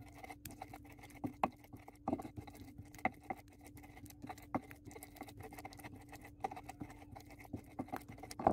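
Stone pestle (ulekan) grinding a wet spice paste of shallots, garlic, candlenut, ginger and turmeric on a flat stone mortar (cobek): faint, irregular scraping and tapping strokes of stone on stone through the paste.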